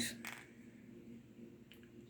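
Quiet room tone with a faint steady hum and a single soft click near the end.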